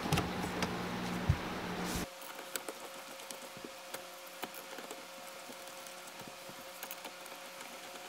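Faint, scattered small clicks and light metal taps as the quick release's bolts are threaded into the steering-wheel hub by hand. A low hum underneath cuts off about two seconds in.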